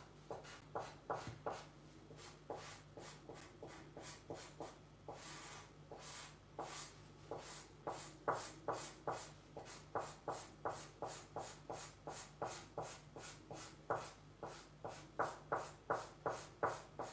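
White ink marker scratching on paper in quick repeated strokes, about two to three a second, hatching white lines over black-inked areas. The strokes are softer in the middle, with a faint steady hum underneath.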